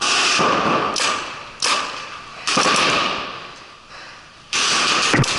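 Paintball markers firing in rapid bursts, about five of them, each starting abruptly and fading over a second or so, with a few single clicks near the end.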